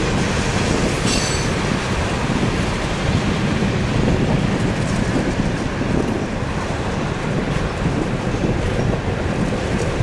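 Steady rumble and road noise from a car driving at speed beside a moving freight train of ethanol tank cars, the two blending into one continuous noise.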